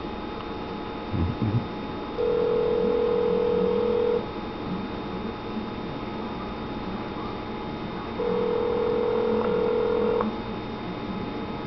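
North American telephone ringback tone heard through a phone: two rings, each a steady tone about two seconds long, with four seconds of quiet between them, while the outgoing call has not yet been answered. A short low bump about a second in.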